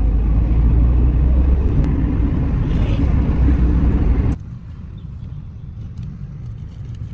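Steady low rumble of a car driving on the road, heard from inside the car. About four seconds in it cuts off abruptly to a much quieter, thinner road rumble.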